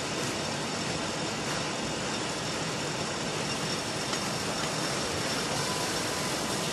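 Steady hum of idling car engines and traffic.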